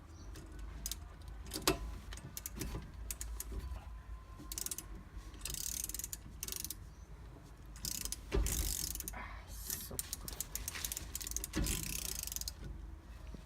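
Hand ratchet wrench clicking in spurts while the fasteners of a Lada Kalina rear brake drum are unscrewed, with scattered knocks and clinks of tools on metal.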